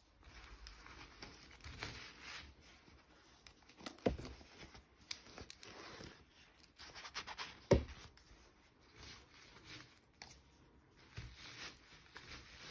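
Packaging being handled and opened by hand: soft rustling and tearing of wrapping, with light clicks and two sharper knocks, about four and eight seconds in.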